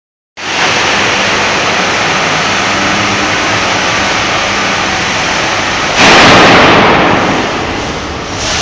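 The H.C. Ørsted engine, a giant Burmeister & Wain two-stroke marine-type diesel, running with a loud, steady noise. About six seconds in there is a sudden, louder rush of noise that fades over a second or two.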